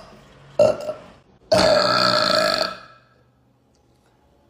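A woman burping twice: a short burp about half a second in, then a longer, loud burp lasting about a second.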